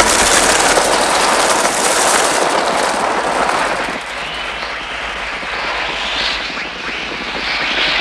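A loud, rushing mass of bird sound: a great flock's wings and cries blended into one dense noise that starts abruptly and slowly thins. A few shrill screeches rise and fall near the end.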